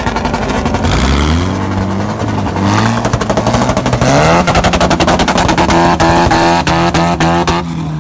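A vehicle engine being revved: the pitch rises and falls in several pulls, then is held high with a fast pulsing exhaust note that cuts off shortly before the end.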